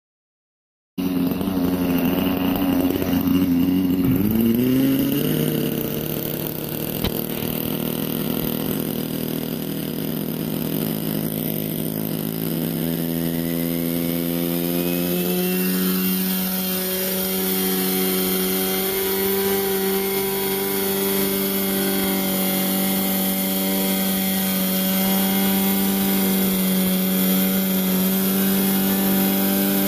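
A GMP Cricket model helicopter's small two-stroke engine running on the ground, starting abruptly about a second in. Its pitch dips briefly, then rises gradually about halfway through as the rotor spins up, and holds steady to the end.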